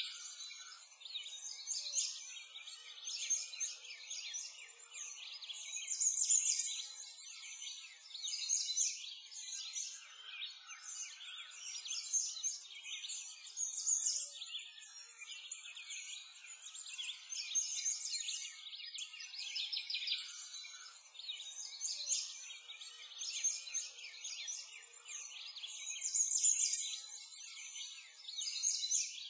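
A dense chorus of many small birds chirping and twittering without a break, swelling and fading every few seconds.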